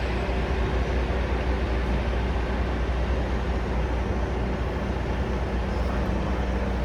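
Steady low rumble of a heavy engine running, mixed with passing street traffic.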